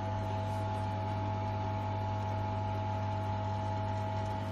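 Electric pump running with a steady hum, pushing liquid through the flow meter at around 190 ml/s.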